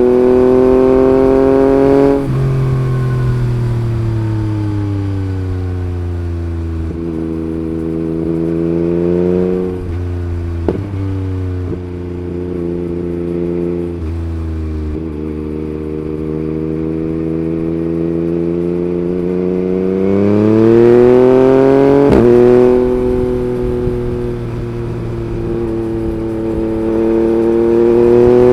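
Yamaha MT-09 890 cc inline-three running through an Akrapovič Racing Line carbon exhaust under riding: the engine note drops off the throttle after about two seconds and winds down to a low, steady note. About halfway through it climbs under acceleration, breaks off briefly in a quick gear change about two-thirds of the way through, then rises again near the end.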